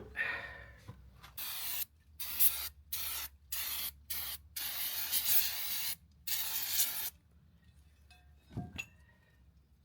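Aerosol brake cleaner sprayed in about seven short hissing bursts, one of them longer, to clean out a caravan wheel hub before a new bearing cone goes in.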